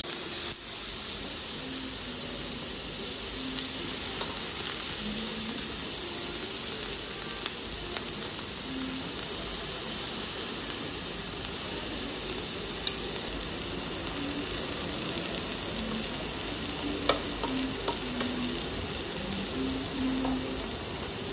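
Thinly sliced marinated beef sizzling steadily on a hot Korean barbecue grill plate as it is stirred with metal tongs, with a few sharp clicks of the tongs against the grill.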